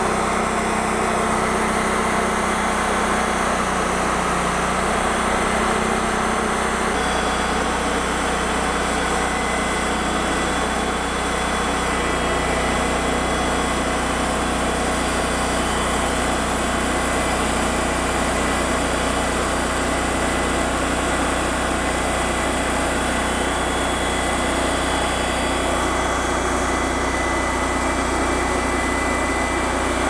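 Timber King 2000 bandsaw mill running steadily, its engine under load as the band blade cuts along a white willow log.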